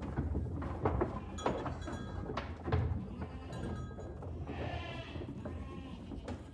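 Several farm animals bleating in short, overlapping calls of different pitches, with a longer call about two-thirds of the way through and scattered knocks among them.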